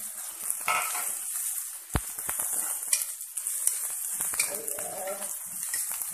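Onions, ginger and garlic sizzling in hot oil in a wok while being stirred, with scattered scrapes and clicks of the stirring on the pan and a sharp knock about two seconds in.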